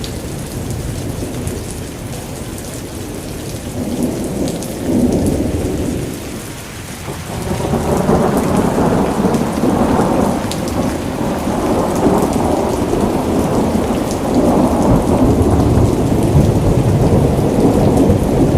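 Rain gun sprinkler spraying water over a soybean crop: a continuous rushing, pattering sound of falling spray with a low rumble, swelling and easing in waves every few seconds.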